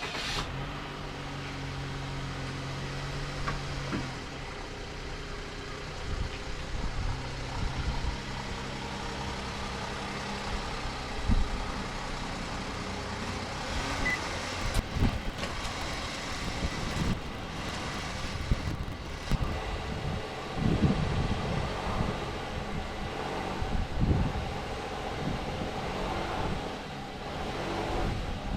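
Suzuki Every Wagon engine running at a steady idle, with scattered knocks and clunks over it.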